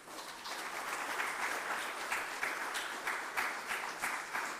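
Applause from a room full of people, starting at once and holding steady, with single sharp claps standing out.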